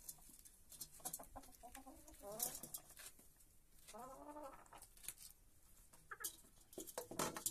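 Domestic hens clucking, with a few drawn-out clucks about two and four seconds in, among scattered sharp ticks of beaks pecking at feed in a metal bowl.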